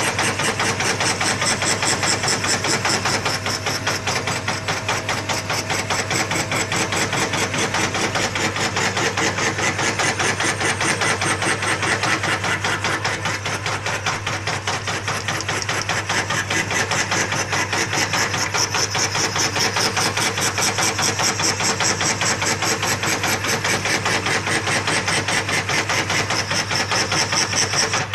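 Homemade scroll saw running: its reciprocating blade makes a rapid, steady clatter over a constant motor hum.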